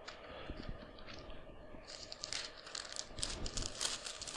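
Thin Bible pages being leafed through: a run of quick papery rustles and flicks that gets busier about two seconds in.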